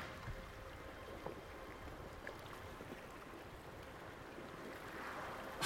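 Faint lapping of water against the hull of a drifting inflatable boat, with a low wind rumble and a few light knocks.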